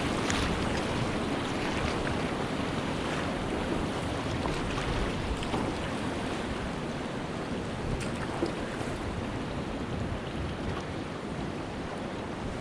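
Steady rush of river rapids heard from a canoe running whitewater, with a brief knock about eight seconds in.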